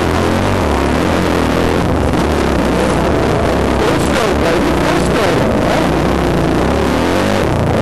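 Single-cylinder dirt bike engine of a 2007 Yamaha YZ450, heard close up from on board, running hard under load with its pitch rising and falling as the throttle goes on and off.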